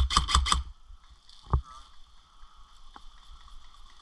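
Airsoft electric rifle firing a rapid string of shots, about six a second, that stops under a second in. A single sharp knock follows about a second and a half in.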